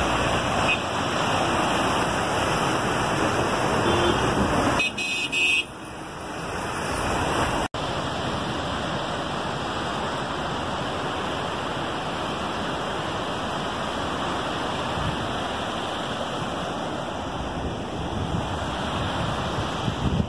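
Steady rushing of fast river water tumbling through rapids below the dam, with a short vehicle horn toot about four to five seconds in.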